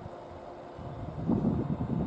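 Shinano Railway 115 series electric train standing at the station with a steady low hum. Loud, irregular low rumbling surges start a little over a second in.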